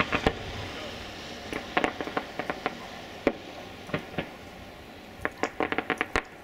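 Fireworks display at a distance: scattered sharp pops and crackles of bursting shells, coming singly and in quick runs about two seconds in and again near the end, over a soft hiss that fades during the first few seconds.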